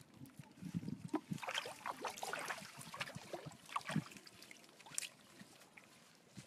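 Water splashing and dripping as hands work in the water at the side of a small boat. It comes as a busy run of short splashes that dies down after about four seconds, with one more sharp splash a second later.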